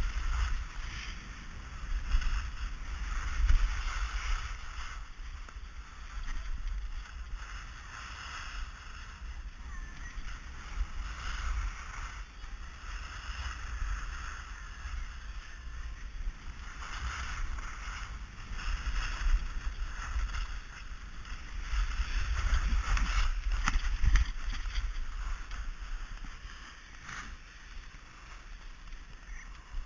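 Wind buffeting a GoPro Hero 2 in its housing during a run down a snow slope: a low rumble with a scraping hiss of edges on snow that swells and fades with the turns, loudest about 3 s in and again a little after 20 s.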